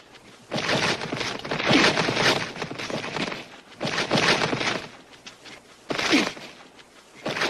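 Martial-arts fight sound effects: rapid swishes and punch and slap impacts in four bursts, the first about three seconds long and the later ones shorter.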